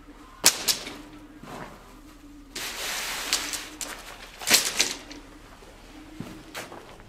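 A small tent being taken down: its poles clack and rattle as they are pulled out, with sharp clicks about half a second in and a louder clatter around the middle, between stretches of rustling tent fabric and footsteps.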